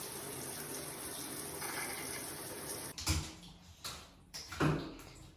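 Steady running water, cut off sharply about three seconds in, followed by a few dull knocks.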